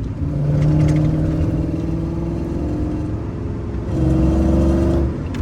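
Cammed Chevy/GMC pickup engine running with a steady drone and low rumble, swelling a little about four seconds in.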